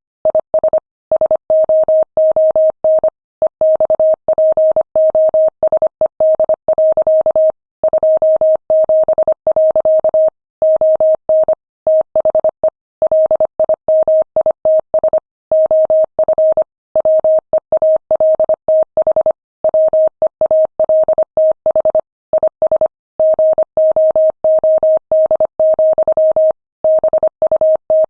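Morse code sent at 25 words per minute: a single steady mid-pitched tone keyed on and off in quick dots and dashes, with short breaks between letters and longer breaks between words.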